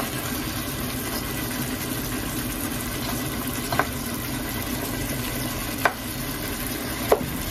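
Chicken pieces sizzling steadily as they fry in a pot and are stirred with a wooden spoon, with three short knocks of the spoon against the pot, about four, six and seven seconds in.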